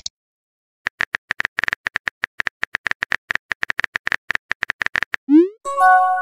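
Texting-story app sound effects: rapid, uneven phone-keyboard typing clicks for about four seconds, then a short rising whoosh as the message sends, followed by a chime of several held tones.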